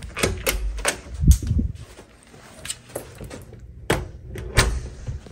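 Room door with a metal lever handle opened and pulled shut behind her: a string of latch clicks and knocks, with a heavy low thump a little over a second in and a sharp knock near the end.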